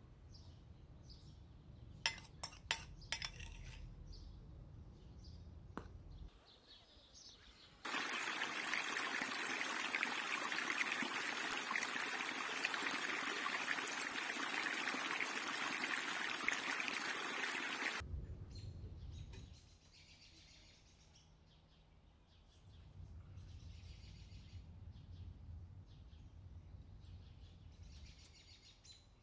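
A few sharp clinks of a spoon against a glass bowl, then a small stream of water splashing over rocks for about ten seconds, the loudest sound here. After that, quieter bird chirps come now and then.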